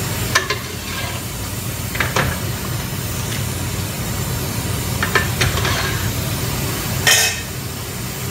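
A metal ladle scooping in a stainless steel cooking pot, knocking against the pot several separate times, the loudest knock about seven seconds in, over a steady low hum.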